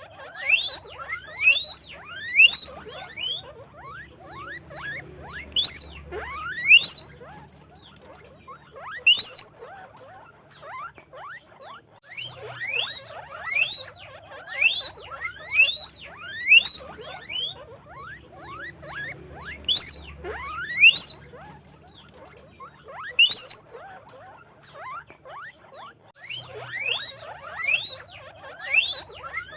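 Guinea pigs squeaking: many short, rising, whistle-like squeals, often overlapping, in bouts broken by brief lulls.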